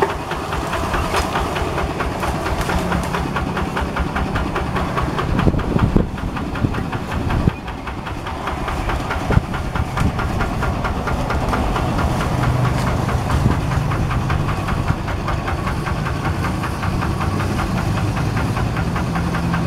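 Single-cylinder diesel engine of a two-wheel hand tractor running steadily, with a rapid, even knocking clatter.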